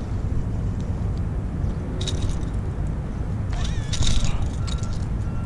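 A steady low rumble, with short high-pitched calls about two seconds in and again around four seconds, the second sliding down in pitch.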